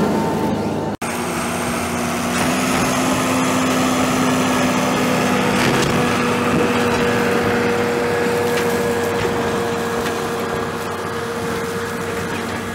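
New Holland TS115 tractor engine running steadily as the tractor drives past pulling a trailer, with the sound cutting out briefly about a second in.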